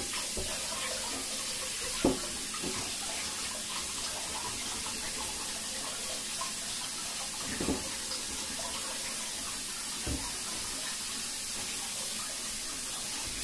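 Kitchen tap running steadily into a sink as a cutting board is rinsed under it, with a few knocks of the board against the sink.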